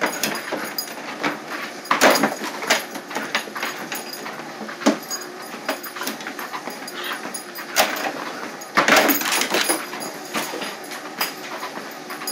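A treadmill running under a walker's footfalls while a German Shepherd moves about on its rear end, giving irregular knocks and clatters. The loudest knocks come about two seconds in and in a cluster around nine seconds.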